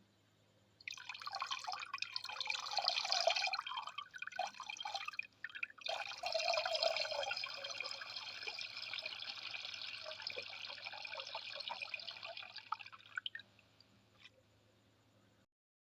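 A person peeing: a stream of urine splashing into water, starting about a second in. It breaks off briefly around five seconds, then runs steadily and tapers to a faint dribble near the end.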